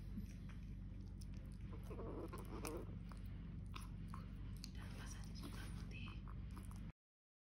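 A kitten eating cat food greedily from a plastic bowl: faint chewing and smacking with small scattered clicks, over a steady low hum. The sound cuts off suddenly near the end.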